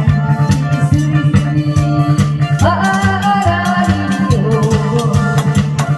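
Loud, upbeat trot medley music with a sustained bass line, a melody and a steady beat of drum strokes.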